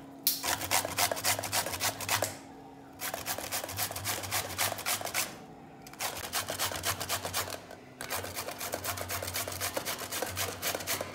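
White radish (mooli) being grated by hand on a stainless steel box grater over a steel plate: quick rasping strokes, several a second, broken by three short pauses.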